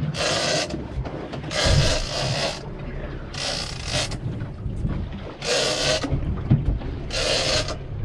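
Large lever-drag game fishing reel being wound in short spells about every two seconds, its gears whirring as line is won back on each drop of the rod during a long fight with a heavy fish.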